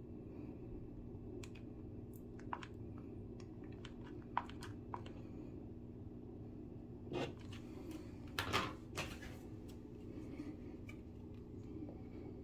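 Scattered small clicks from a hot glue gun being worked at a hole in drywall, then a few louder knocks and rustles of tools being handled, over a steady low hum.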